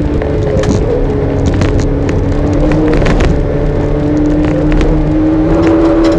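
Porsche 924's four-cylinder engine pulling hard under load, heard from inside the car's cabin. Its pitch holds fairly steady and then climbs over the last couple of seconds as the car accelerates. Scattered short clicks and rattles sound in the middle.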